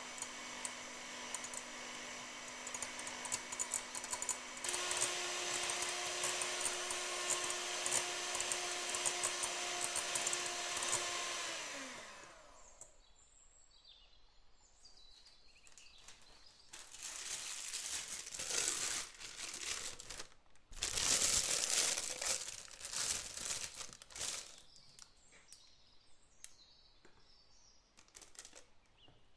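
Electric hand mixer whipping cream, its motor stepping up to a higher speed about five seconds in, then switched off and winding down around twelve seconds in. After that, a plastic piping bag crinkles as it is opened and filled.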